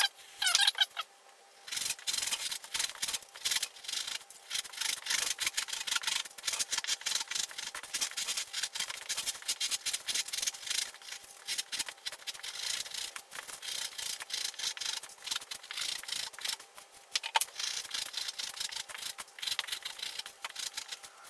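A carving knife cuts and scrapes blue craft foam in a fast, dense run of scratchy strokes, as a hat block is shaped. One sharper click comes a few seconds before the end.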